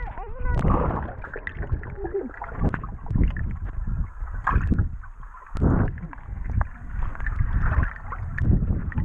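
Swimming-pool water churning and bubbling around a GoPro Hero4 Session camera held underwater, heard muffled through the submerged camera. The sound surges and fades about once a second as the swimmer's arms stroke through the water.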